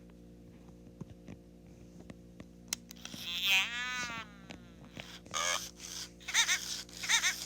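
A 1998 Furby's electronic voice burping through its small speaker in several short bursts, starting about three seconds in, each with a warbling pitch that slides down and back up. Faint clicks come before the burps.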